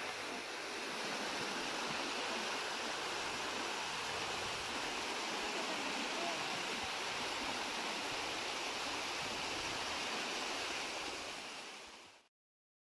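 Water rushing and splashing over rocks in a stream cascade, a steady rush that fades out near the end.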